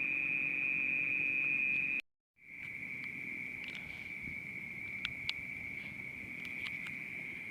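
Crickets trilling in one steady, unbroken high-pitched drone. It cuts out briefly about two seconds in and comes back slightly lower in pitch, with a few faint clicks near the middle.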